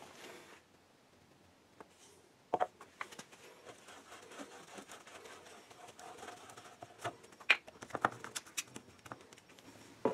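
Handling noises on a workbench: scattered light clicks and knocks of small cans and bottles being picked up and set down, with a paper towel rustling in between.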